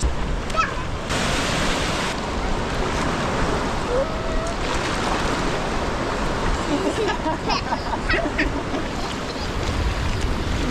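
Ocean surf washing onto a beach, with wind buffeting the microphone. A brief surge of hiss comes about a second in, and faint distant voices come and go near the middle.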